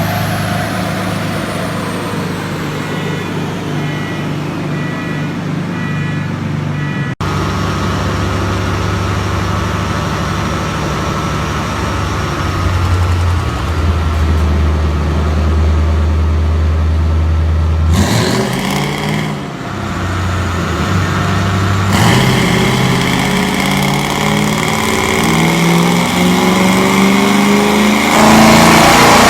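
Tuned car engines running in a series of short clips, held at steady revs and then revving; near the end the engine revs climb steadily.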